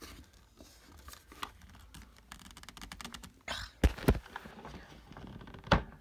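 Handling noise of a vacuum hose being fitted to a Kirby G5 upright's blower port, with the motor off: faint rustling and small clicks, then a few sharp knocks around four seconds in and one just before the end.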